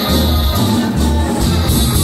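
Loud Mexican dance music with a strong bass beat pulsing about twice a second.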